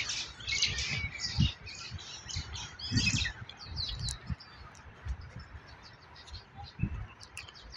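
Birds chirping and calling in trees, many short high calls coming thick in the first few seconds and thinning out later, with a few low thumps in between.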